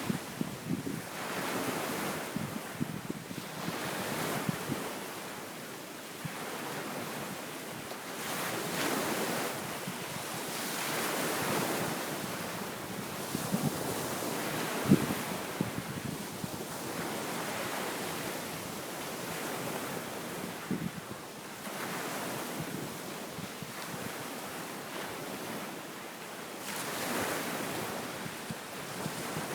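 Waves breaking and washing onto a sandy beach, whipped up by an east wind ahead of an approaching typhoon, swelling and easing every few seconds, with wind buffeting the microphone. A single sharp pop about halfway through.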